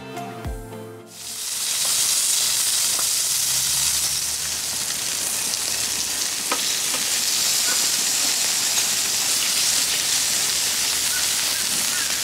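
Raw chicken breasts sizzling on the hot grates of a gas grill, a steady hiss, with a few faint clicks as they are turned with tongs. A short bit of music plays in the first second, before the sizzle starts.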